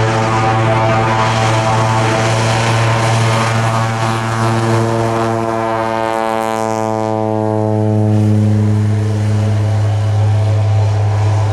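Thrush 510G agricultural plane's GE H80 turboprop at takeoff power during the takeoff roll: a steady low propeller drone with a stack of overtones. The overtones slide down in pitch as the plane passes, about six to seven seconds in, with a brief rush of high hiss at the closest point.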